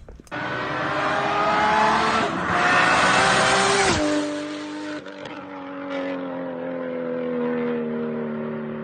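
Nissan Skyline sedan pulling away hard. The engine note climbs, drops at gear changes about two and four seconds in, and then holds a slowly falling note as the car drives off.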